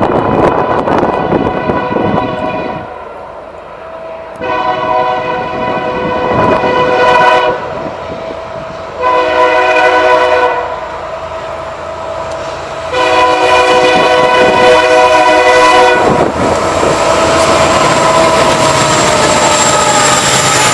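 Union Pacific SD70 locomotive's air horn blowing a chord in the grade-crossing pattern: long, long, short, long. From about 16 seconds in, the loud rush and rumble of the locomotive and train passing takes over.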